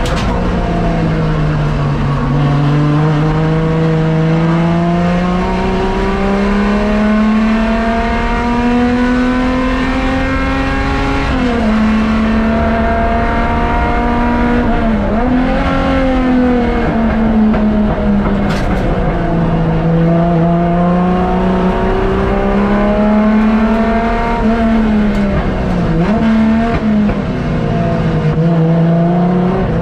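Rally car engine running hard, its pitch slowly climbing and falling with throttle and speed, with a few sharp dips in the revs.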